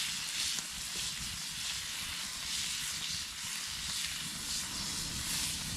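Meat sizzling in very hot grease over a campfire, a steady hiss with a low rumble underneath; the fat is hot enough that a grease fire is about to start.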